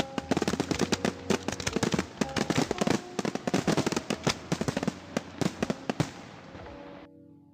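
Fireworks going off in a rapid, dense run of bangs and crackles, with faint held music notes underneath. It cuts off suddenly about seven seconds in.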